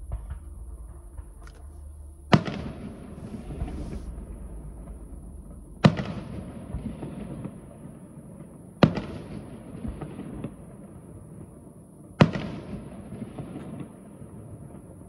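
Fireworks bursting: four sharp bangs spaced three to four seconds apart, each one trailing off over a few seconds.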